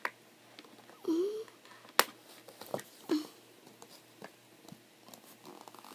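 Scissors snipping at a doll's box packaging: a few separate sharp snips, the loudest about two seconds in. Between them come a couple of short breathy vocal sounds from the child.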